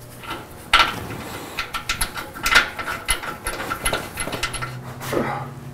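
Metal clinks, clicks and knocks of bolts and hand tools being worked into a steel bumper and truck frame, with a sharp clank a little under a second in.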